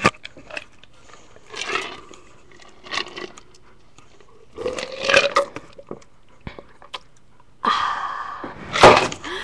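A person drinking orange juice close to a webcam microphone: scattered gulps and mouth noises with quiet gaps between them, and a short pitched burp about five seconds in.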